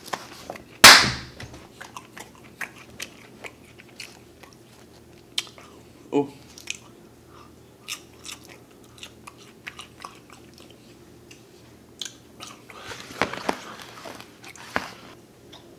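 Close-miked crunchy chewing and biting of romaine Caesar salad, a scatter of short wet crunches, with one very loud sharp crunch about a second in. Near the end, a cluster of louder crackling handling noise.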